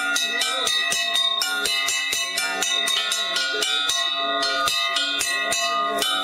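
Improvised church bell, a length of metal hung from a tree, struck rapidly with a rod, about four or five strikes a second, each ringing on into the next. It is rung to call people to the service.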